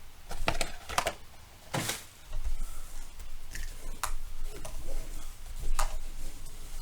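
Trading card packs being handled and set down on a tabletop: a handful of scattered clicks and taps, the loudest a little under two seconds in.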